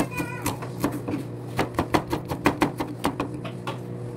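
Kitchen knife slicing shallots on a plastic cutting board: quick, irregular knife strokes knocking on the board, about four a second.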